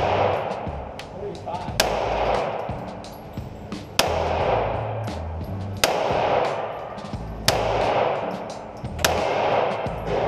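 HK VP9 9mm pistol fired five times, one shot about every two seconds, each crack trailing off in the echo of an indoor range.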